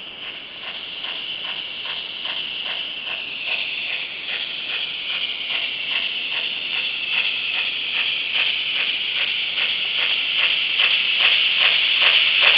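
Sound module of a model 555.1 steam locomotive playing steam chuffs over a steady hiss. The chuffs start at about two to three a second and quicken to about four a second as the locomotive pulls away slowly, growing louder throughout.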